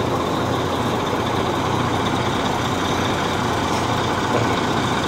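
An engine running steadily at idle, a low hum under an even noise.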